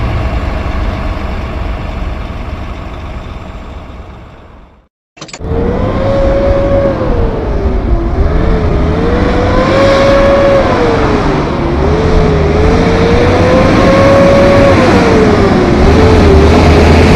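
Mack truck's diesel engine running steadily and fading away over the first few seconds. After a sudden cut, a truck engine climbs in pitch and drops back three times as it accelerates up through the gears.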